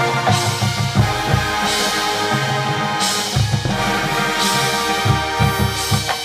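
Marching band playing: winds holding chords over repeated drum hits, with crashes about every second and a half.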